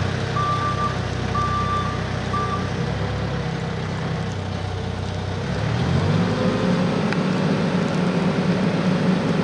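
Caterpillar 355 telehandler's diesel engine running while its reversing alarm beeps about once a second for the first few seconds. The alarm then stops, and about six seconds in the engine revs up and holds at the higher speed as the machine drives.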